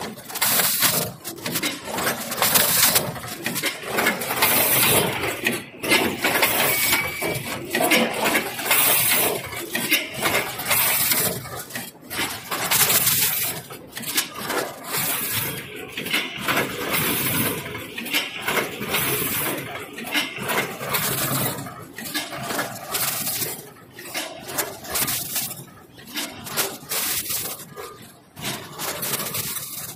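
Automatic pet-food weighing and packing machine running, with dense, irregular clattering and clicking from its mechanisms.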